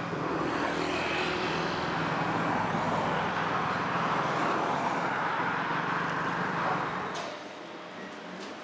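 City street traffic: a steady noise of cars driving past. About seven seconds in it drops to a much quieter background ambience.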